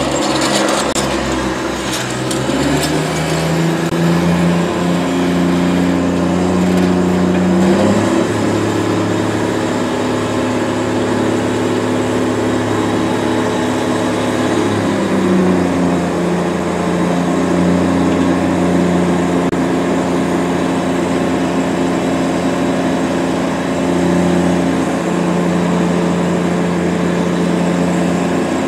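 Tractor engine running steadily to drive a Kaweco vacuum tanker's pump while the tanker sucks slurry up through a crane-mounted suction hose. The engine note shifts in pitch a few times, rising slightly about 15 seconds in.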